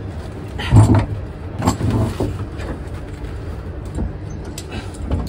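A handful of metal clicks and knocks as a truck-cap clamp is tightened by hand on the pickup's bed rail, over a low steady rumble.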